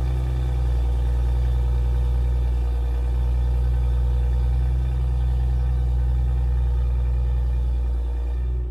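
Toyota GR Supra's 3.0-litre turbocharged inline-six idling steadily through a decatted downpipe and an aftermarket valved exhaust, a low, even rumble.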